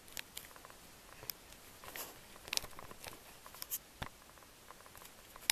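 Handling noise: scattered soft clicks and rustles as the camera is moved, with a sharper click near the end.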